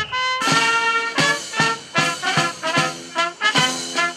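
Brass band playing a lively piece in short, punchy notes with a steady beat, about three notes a second.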